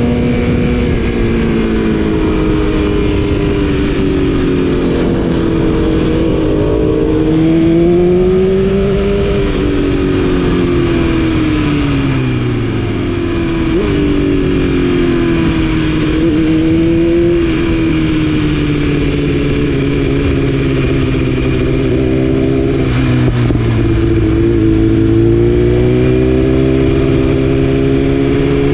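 BMW S1000RR's inline-four through an Akrapovic exhaust, heard from on board, its engine note repeatedly rising and falling as the throttle is opened and closed, over a steady rush of noise.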